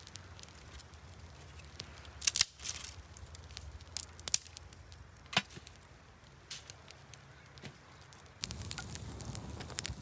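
Open fire of dry leaves and twigs crackling, with irregular sharp snaps and cracks of dry twigs as branches are piled onto it; the loudest cracks come a little over two seconds in. Near the end the crackling becomes fuller and steadier.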